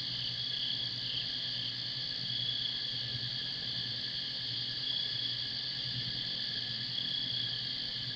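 Steady outdoor chorus of crickets and other insects, a continuous high trilling that does not change, over a low steady hum.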